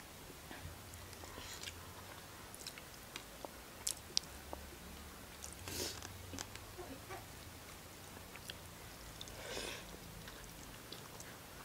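Faint close-up eating sounds of people chewing mouthfuls of rice and vegetables eaten by hand. Scattered small sharp clicks run through it, with two louder breathy puffs about six and nine and a half seconds in.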